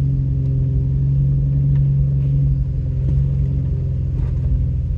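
Vehicle engine and drive noise heard from inside the cabin while driving, a steady hum that eases off slightly about halfway through.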